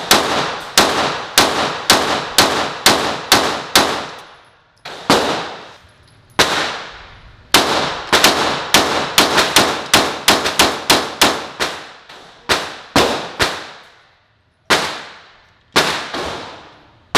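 Ported Glock 17 9mm pistol fired in fast strings of shots, about two to three a second, with a few short breaks between strings; each shot leaves a brief echo.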